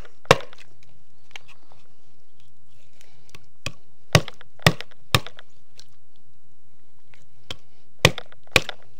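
A heavy knife chopping through bones on a wooden board: single sharp strikes, one just after the start, a quick run of four around the middle, and two more near the end.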